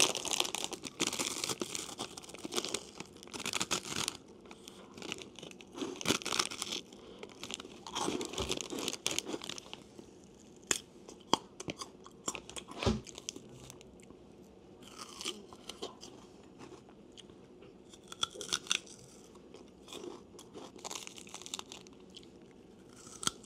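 Close-miked eating sounds with no speech: crunching and chewing of crisp dried bread, then bites and chewing of fresh fruit. The crunches are short, irregular and spaced out, the densest near the start.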